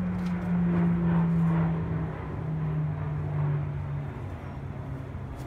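E-2 Hawkeye twin-turboprop radar plane flying over: a steady propeller drone whose pitch drops slowly as it passes, fading toward the end.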